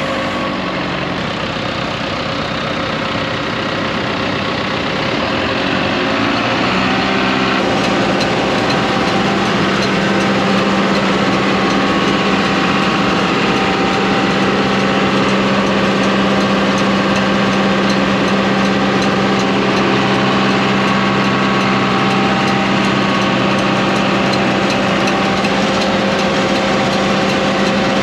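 Tractor's diesel engine running, throttled up from idle about four to eight seconds in and then held steady at higher speed.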